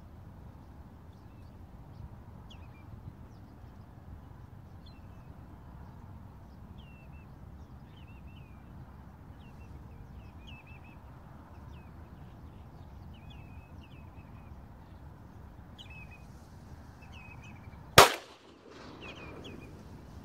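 Short, repeated bird calls, then a single shotgun shot near the end, by far the loudest sound, with a brief echo trailing after it.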